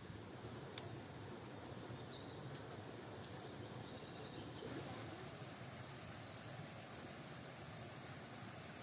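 Outdoor rural ambience: a steady low rush of background noise, with small birds chirping briefly several times and one sharp click about a second in.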